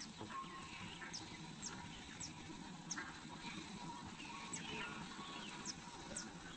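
Faint, short, high-pitched bird chirps at irregular intervals, about one or two a second, over a low background hiss.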